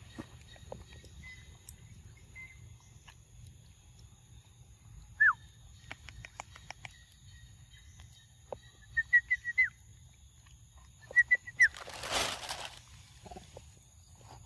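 Bird calls: one loud falling whistle about five seconds in, then a quick run of four short high notes and, a little later, three more. A brief rustling noise follows near the end.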